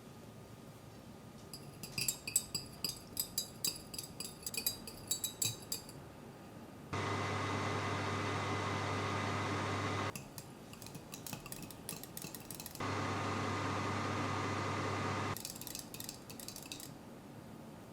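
Light clinking and tapping of kitchen utensils and dishes, twice broken by an electric kitchen appliance running with a steady low hum for about three seconds, cutting off abruptly each time.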